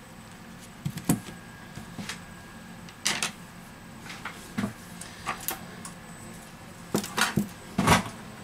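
Handling noise of a phone repair bench: scattered clicks and light knocks as the opened smartphone, a tool and small parts are moved and set down on a silicone work mat, with a cluster of louder knocks near the end.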